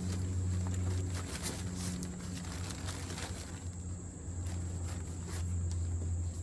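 Rustling and light knocks of a book and a cloth being packed into a fabric tote bag, over a steady low hum and a constant thin high-pitched tone.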